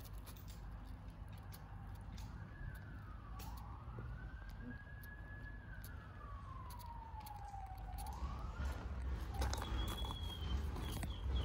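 A siren wailing, its pitch sliding slowly up and then down over several seconds, over a steady low rumble. Near the end, short high chirps come in quick succession.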